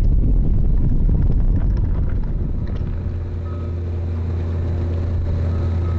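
Wind buffeting the microphone, then from about three seconds in the steady hum of a sailboat's inboard engine running at constant speed.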